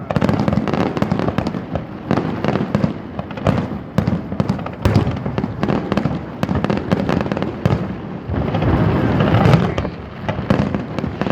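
A fireworks display going off continuously: a rapid run of bangs over dense crackling, with a thicker stretch of crackle about eight to ten seconds in.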